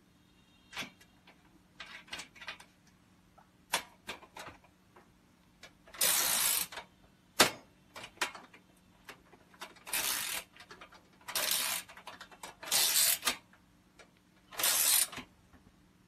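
Ratcheting combination wrench with a swivel head turning a nut on a steel shelving rack: five short runs of ratchet clicking as the handle swings back, with single metal clicks and taps between them.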